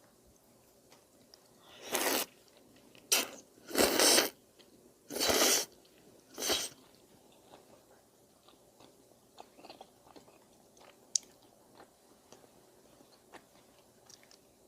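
A person eating udon noodles and kimchi close to the microphone: five loud, noisy mouthfuls in quick succession, then quieter chewing with small clicks.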